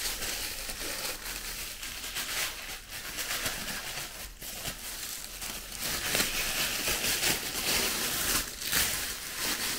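Thin plastic wrapping crinkling and rustling as it is handled and pulled off a drinking bottle, with many small crackles throughout.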